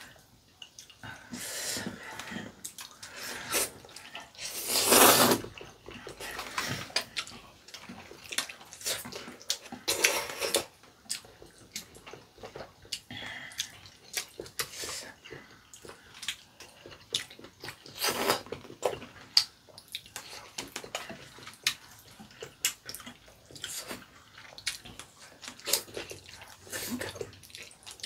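Two people eating spaghetti with chopsticks: wet noodle slurps and chewing, in irregular bursts. The loudest slurp comes about five seconds in.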